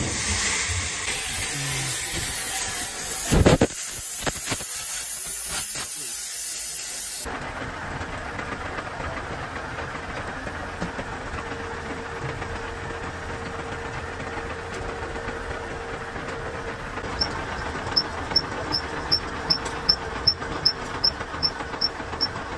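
Gas torch hissing steadily as it heats a steel gear held in a lathe chuck, with one short loud pop about three and a half seconds in. About seven seconds in, it gives way to the metal lathe running with a steady hum. A light regular ticking, about three a second, joins in near the end as the boring bar cuts.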